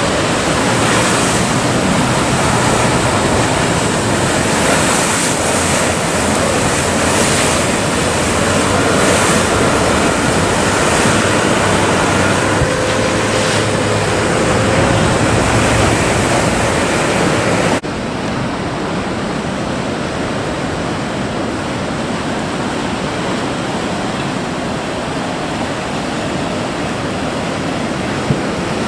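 Ocean surf breaking and rushing in choppy water, a dense steady roar of water. About two thirds of the way through, the sound abruptly turns duller and a little quieter.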